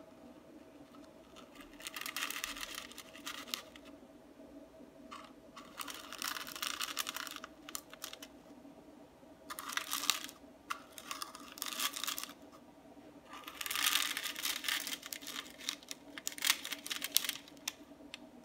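Clear cup pressing mounds of shredded kunafa dough flat on parchment paper: four bursts of crinkling and crackling, each lasting a few seconds, over a faint steady hum.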